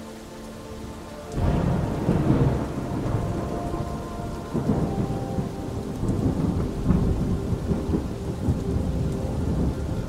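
Steady rain, then a thunderclap about a second in that rolls on as a long, deep rumble of thunder.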